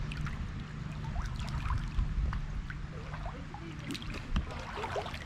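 Shallow creek water sloshing and trickling, with a low steady rumble underneath.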